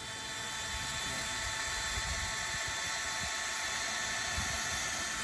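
Power drill motor running steadily with a high whine, building up over the first second and then holding level.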